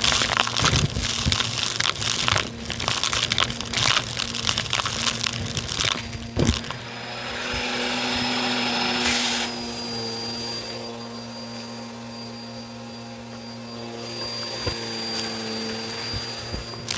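Bissell vacuum running with its hose tool on a shag rug, the motor giving a steady hum and high whine. Small debris crackles and clatters up the hose for the first several seconds. A rushing suction hiss follows and stops abruptly about nine seconds in, leaving the motor running more quietly, with a few more clicks of debris near the end.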